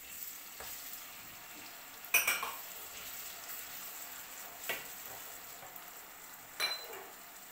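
Chopped tomato and browned onions sizzling in a stainless steel frying pan while they are stirred with a wooden spatula, with three sharp knocks of the spatula against the pan about two seconds apart.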